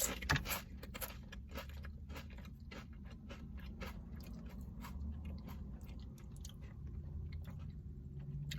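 A person biting into and chewing crisp potato chips close to the microphone: a bite at the start, then a steady run of quiet crunching and crackling.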